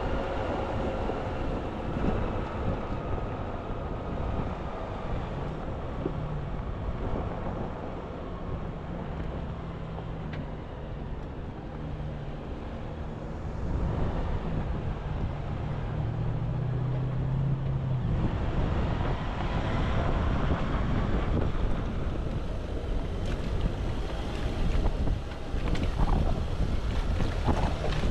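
Wind buffeting the microphone, with a low steady hum underneath.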